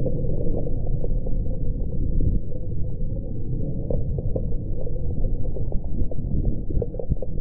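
Steady, muffled low rumble of wind and blown dust buffeting a launch-pad camera in the exhaust cloud just after a high-power rocket lift-off, with a few light ticks of grit striking the camera about four seconds in and again near the end.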